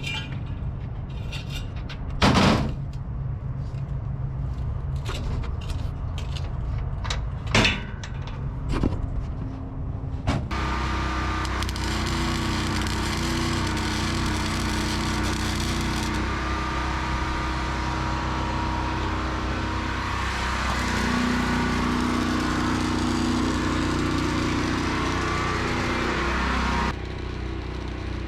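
Metalwork on a steel gate: scattered knocks and clicks, then a steady power-tool or welding noise that starts abruptly about ten seconds in, runs for about sixteen seconds with its pitch shifting under load, and cuts off suddenly.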